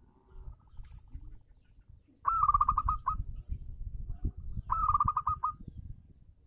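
Zebra dove (perkutut) singing: two rapid trills of staccato notes, the first about two seconds in and the second about two and a half seconds later, each under a second long. A fainter trill comes at the start, and a low rumble runs underneath.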